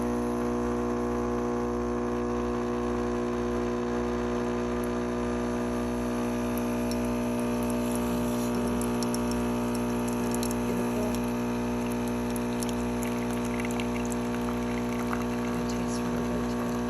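Pampered Chef Deluxe coffee maker's pump running with a steady, even hum as it brews through the espresso insert, with faint scattered clicks from about seven seconds in.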